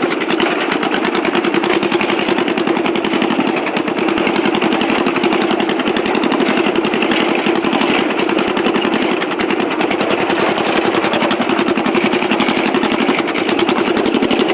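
Riding lawn mower's engine running loud and steady with no muffler on its custom exhaust, the exhaust note a rapid, even train of pulses.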